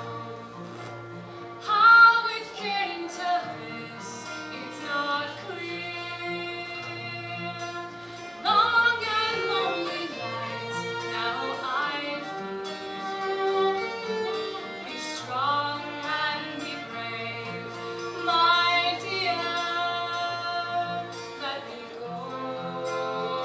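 Live acoustic Celtic folk song: a woman singing in wavering phrases over a fiddle and strummed acoustic guitars.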